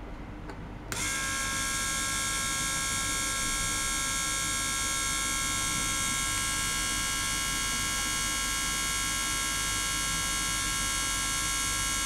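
Small electric gear pump switching on about a second in, then running with a steady high whine.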